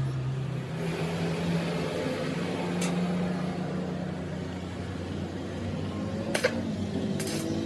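Lathe running with a steady motor hum that steps up in pitch about a second in, with a few short sharp ticks near the end.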